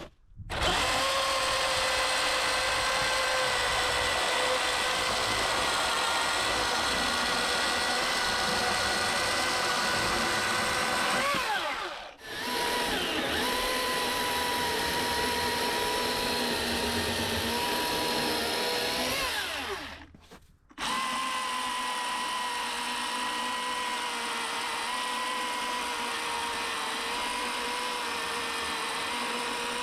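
Milwaukee M18 Fuel battery chainsaw cutting a beech log, its electric motor giving a steady high whine. It winds down and stops twice, about twelve and twenty seconds in, and starts straight up again each time.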